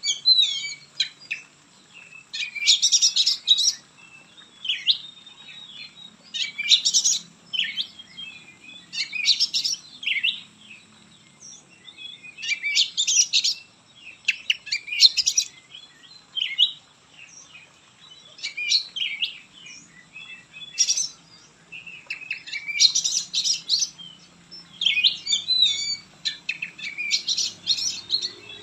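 Oriental magpie-robin (kacer) in full song: loud bursts of rapid, varied high whistles and chattering notes every few seconds, with softer single notes between.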